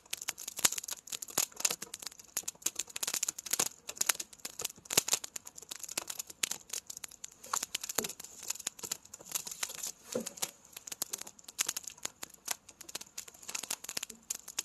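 Firewood burning, with a steady run of irregular crackles and sharp pops.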